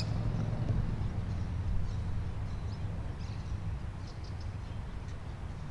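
Outdoor ambience: a steady low rumble with a few faint, brief bird chirps.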